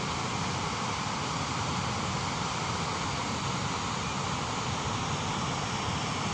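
Waterfall's rushing water: a steady, unbroken roar of falling water.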